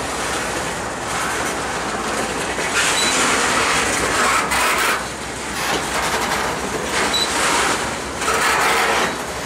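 Loaded freight flatcars rolling past close by: a steady rumble and rattle of steel wheels on the rails, growing louder in stretches every two to three seconds.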